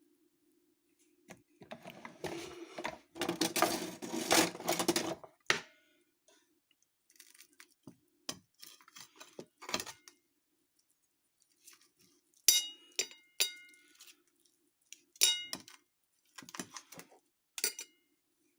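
Knife and fork cutting open a cooked chicken piece on a plate: a few seconds of scraping as the knife saws through the meat, then scattered clinks of metal cutlery against the plate, several with a short ring, over a faint steady hum.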